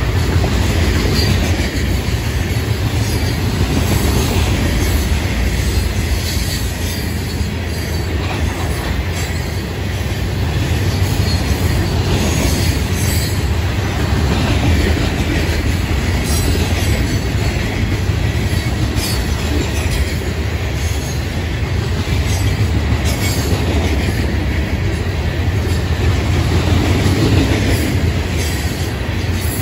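Freight train's rock hopper cars rolling past: a steady, loud rumble of steel wheels on the rails.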